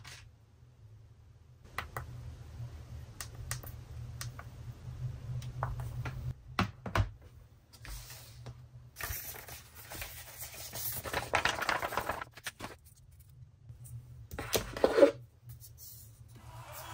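Handling sounds of an unboxing: scattered clicks and taps with stretches of rustling and scraping as a tablet, its cardboard box and a small plastic power adapter are picked up and set down. The loudest rustle comes near the end.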